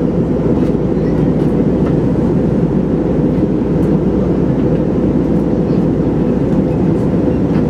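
Steady cabin drone inside an Airbus A321 airliner in flight: engine and airflow noise from a seat over the wing, a deep, even rumble that does not change.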